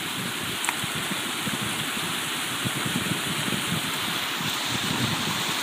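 Steady rush of water running at a beaver-clogged dam spillway.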